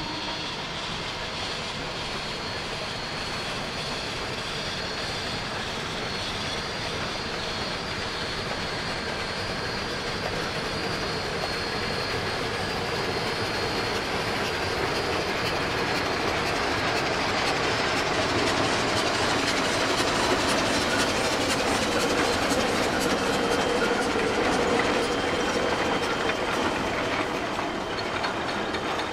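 A line of Shay geared steam locomotives passing slowly, with a steady clatter of running gear and wheels clicking over the rails. It grows louder through the middle as the engines go by, then eases as the tail of the train passes.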